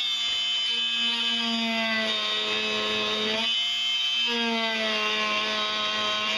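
Dremel Multi-Max MM40 oscillating multi-tool running with its rigid scraper blade, scraping dried glue off the underside of a wooden bench: a steady buzz whose pitch sags and briefly falters about halfway through, then recovers.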